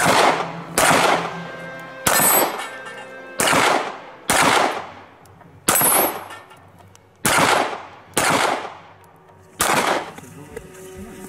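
Handgun fired nine times in a single string at uneven intervals of roughly one second. Each shot is a sharp crack with a short echo trailing off.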